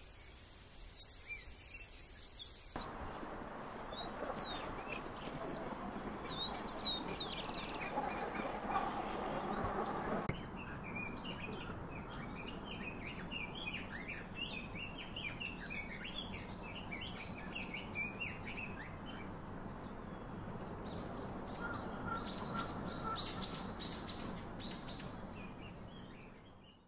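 A chorus of birds chirping, many short rising and falling calls overlapping, over a steady background hiss. It starts abruptly about three seconds in and changes abruptly about ten seconds in, when the higher calls drop away and a denser run of chirps continues.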